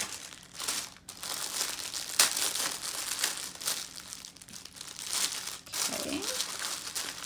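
Clear plastic bag of small sealed packets of diamond-painting drills crinkling and rustling as it is handled, with sharp crackles throughout, the sharpest about two seconds in.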